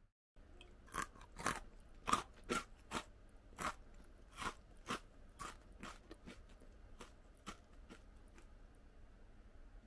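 Close-up chewing of crunchy shrimp-curry rice cracker sticks: a run of sharp crunches about two a second, loudest in the first few seconds and growing fainter toward the end as the bite breaks down.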